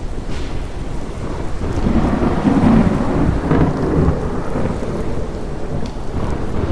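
Thunderstorm: steady rain with a roll of thunder that swells about two seconds in and fades a couple of seconds later.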